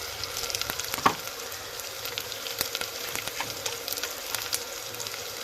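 Soybean mince frying in hot oil with spices in a pan: steady sizzling with many small crackles, and one sharper knock about a second in.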